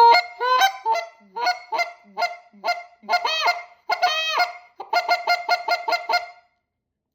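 Goose call blown by mouth with a cupped hand over its end, giving a run of loud short honks. Two longer, drawn-out honks come in the middle, then a quicker string of short clucks, stopping about half a second before the end.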